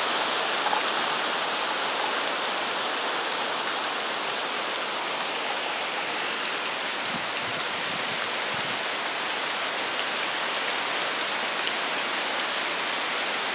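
Steady rush of strong, gusting tropical-storm wind through tall trees, with light rain.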